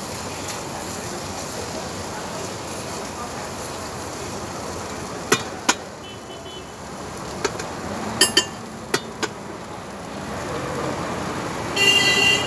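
Street-stall ambience with steady traffic noise. About five to nine seconds in come seven sharp metal clinks, metal spatulas striking the iron dosa griddle. Near the end a short, loud horn toot sounds.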